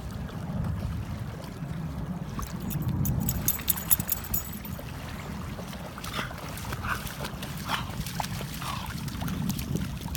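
Wind rumbling on the microphone, with a burst of water splashing a few seconds in and several short dog vocalizations near the middle.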